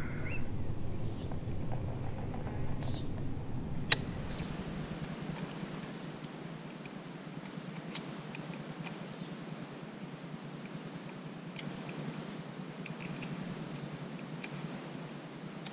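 Insects chirring in a steady high-pitched drone. A low rumble runs under it for the first four seconds and stops at a sharp click; a few faint ticks follow later.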